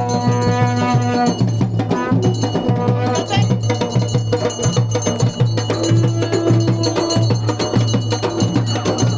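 Traditional folk music with fast, continuous drumming and metallic percussion, with a few held pitched notes over the beat.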